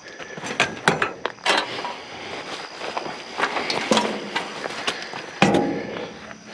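Junk and scrap being handled and shifted: irregular knocks, clatter and scuffing, with a heavier knock about five and a half seconds in.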